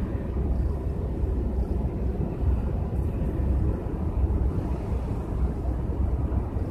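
Wind buffeting the microphone: an uneven, gusting low rumble with a steady rushing haze.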